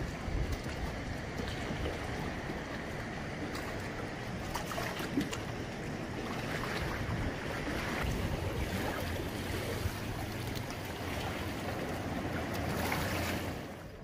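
Sea water washing and sloshing among concrete tetrapods of a breakwater, with wind buffeting the microphone as a steady rushing noise.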